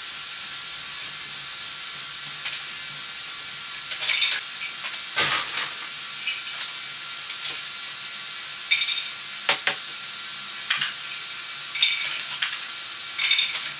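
LEGO Technic 42055 bucket wheel excavator's Power Functions motor drives the plastic conveyors with a steady whirr. Small LEGO pieces clatter off the conveyor into the toy dump truck's bed in scattered clicks.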